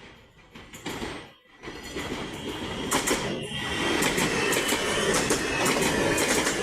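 CSR electric multiple-unit train pulling into a station, growing louder from about a second and a half in, with high squealing from its wheels and brakes and clicking over the rail joints.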